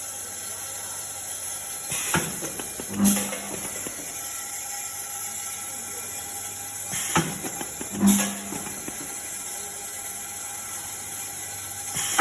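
Automatic nut welding machine with a rotary table cycling, over a steady hiss of compressed air. About every five seconds comes a sharp clack with a rush of air, then about a second later a short, loud hum, two full cycles in all.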